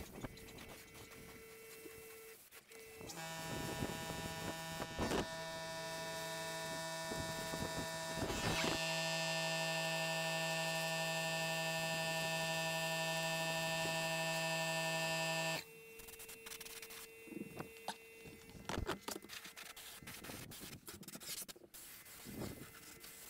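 Air compressor motor running with a steady hum and high whine, starting about 3 seconds in, a little louder from about 9 seconds, and cutting off suddenly near 15 seconds. Faint ticks and rustles come before and after it.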